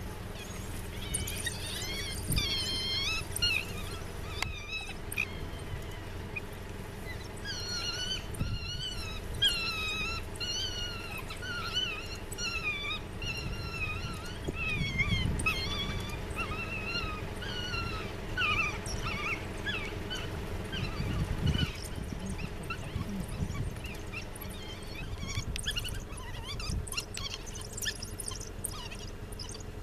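A pack of African wild dogs (painted wolves) giving high-pitched, wavering twittering and squealing calls, their rallying cries, overlapping in bouts. A short burst comes early and a long dense run follows through the middle before the calls thin out.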